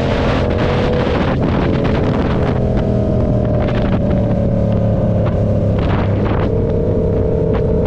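Motorcycle engine running at fairly steady revs under way, with wind rushing over the microphone.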